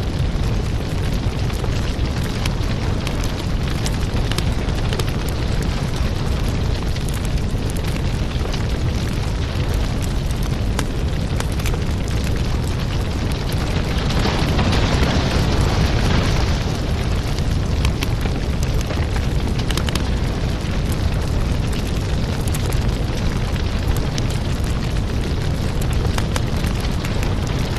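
Firewood burning: logs crackling with many small pops over a steady low rumble of flame, growing louder for a couple of seconds around the middle.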